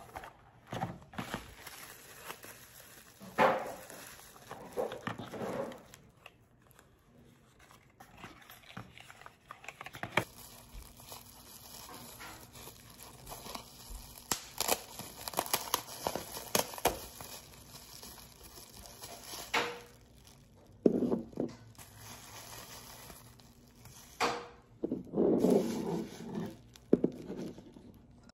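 Clear plastic bubble wrap crinkling and crackling as it is pulled apart and handled, along with cardboard product boxes being handled. The noise comes in irregular spells with sharp crackles, without any steady rhythm.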